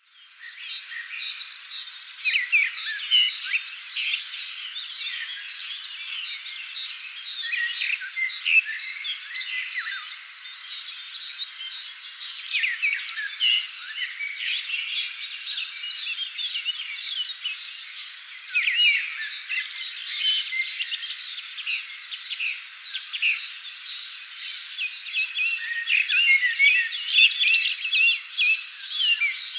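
Forest songbirds singing together in a dense chorus: many overlapping quick chirps and short whistled notes that rise and fall, without a pause.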